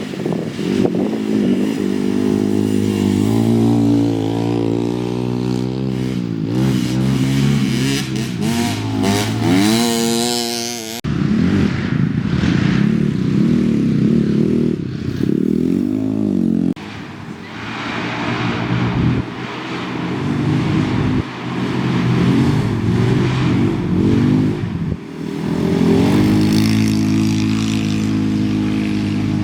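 Off-road race vehicle engines revving up and down under hard acceleration, with a sharp rising rev about ten seconds in. The engine sound changes abruptly a few times between clips, with some clatter.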